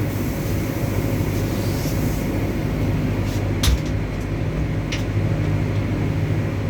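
WAG-9 electric locomotive running, heard from inside its cab: a steady electrical hum over the rumble of the moving train. A few sharp clicks or knocks cut through, the loudest a little before four seconds in.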